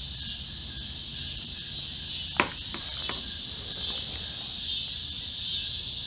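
Steady high-pitched chorus of insects buzzing without a break, with one sharp click about two and a half seconds in.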